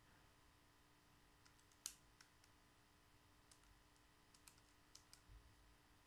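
Near silence: faint room tone with a dozen or so small, scattered clicks, the sharpest about two seconds in and a cluster in the last couple of seconds.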